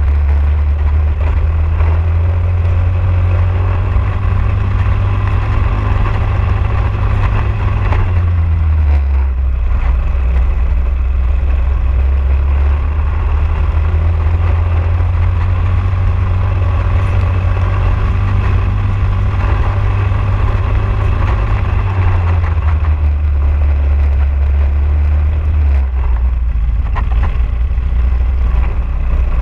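Briggs & Stratton LO206 single-cylinder four-stroke kart engine running at racing speed, its note climbing along the straights and dropping twice where the kart slows for corners before pulling up again.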